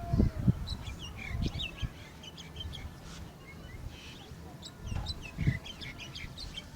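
Small birds chirping in quick, scattered calls, with a few low thumps near the start and again about five and a half seconds in.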